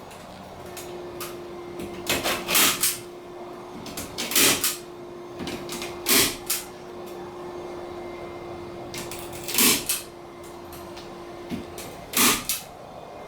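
Staple gun firing staples into a plaster ceiling: about five sharp clacks spaced roughly two seconds apart, some doubled, with a few fainter clicks between.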